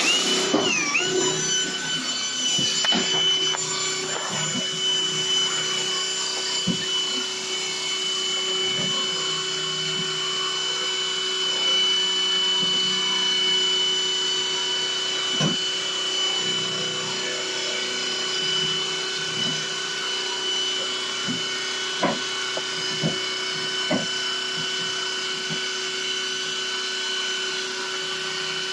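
Electric drill spinning a diamond-tooth hole-saw bit, grinding a hole through ceramic tile. It comes up to speed in the first second, then runs as a steady whine, with a few short knocks from about halfway on.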